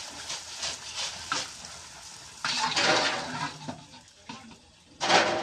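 A metal ladle clinking and scraping against an iron kadhai as puris are turned and pushed through hot frying oil. There are a few light clicks, then a louder scrape about halfway through and another near the end.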